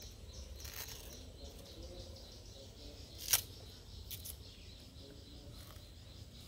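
Faint outdoor background with one sharp click a little over three seconds in and a few softer clicks around it.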